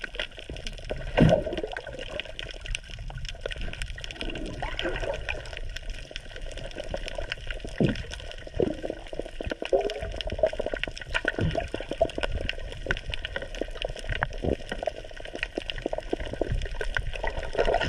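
Muffled rushing and sloshing of water heard from inside the sea, with many scattered faint clicks and a few louder knocks, the loudest about a second in.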